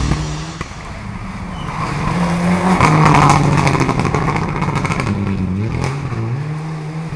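Mitsubishi Lancer Evolution rally car's engine revving hard as it drives past, its pitch climbing and dropping several times through gear changes, loudest about three seconds in.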